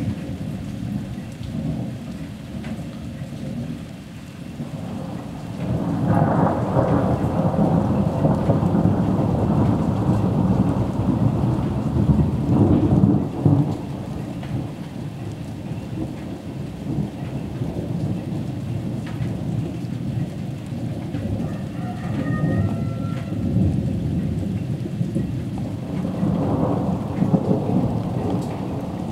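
Thunderstorm: thunder rumbling in long rolls over steady rain. A deep roll builds about six seconds in and rumbles on for several seconds before fading slowly, and another rises near the end.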